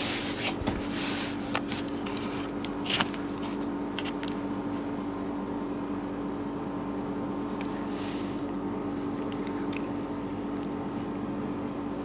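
Close-range handling noise from an orange-and-white cat nosing at the camera: soft rustles and clicks in the first few seconds and a short soft sniff about eight seconds in, over a steady low hum.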